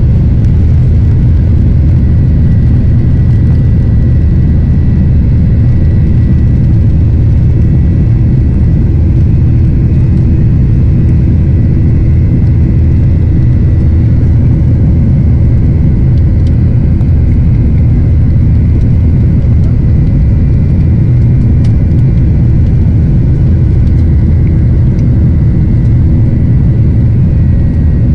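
Jet airliner's turbofan engines at takeoff thrust, heard from inside the cabin during lift-off and the climb out: a loud, steady low rumble with a faint high whine above it.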